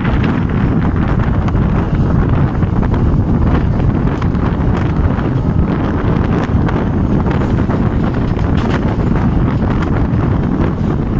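Heavy wind buffeting on a phone microphone held out of a moving train, over the steady low rumble of the train running along the track.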